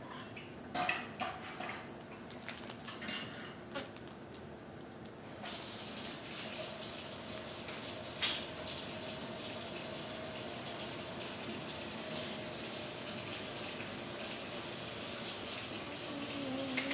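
A few soft knocks and clicks, then a steady rush of running water, like a tap left running off-camera, that starts suddenly about five seconds in.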